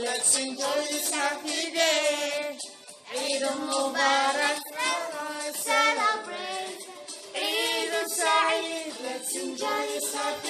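Background music: an Arabic Eid nasheed sung by a high voice, its held notes wavering with vibrato.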